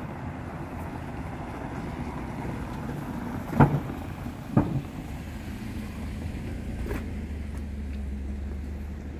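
A taxi driving past close by on a paved street: a steady engine-and-tyre rumble, with two sharp knocks about a second apart as it goes by.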